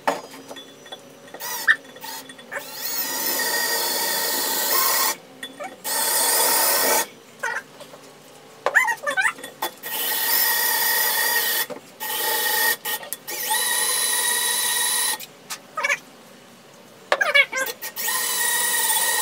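Cordless drill boring into the thin stainless steel shell of an empty fire extinguisher, run in about seven short bursts that start and stop. Each burst carries a steady high whine from the bit cutting the steel, with a few short squeaks between runs.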